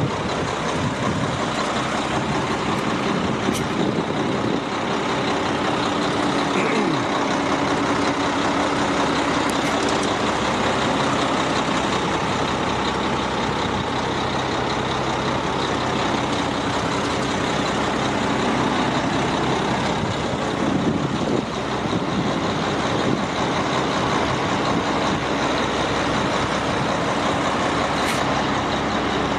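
Concrete mixer truck's Cummins ISM inline-six diesel running steadily with a dense mechanical drone. Its pitch glides briefly twice, about a quarter of the way in and again about two-thirds of the way in.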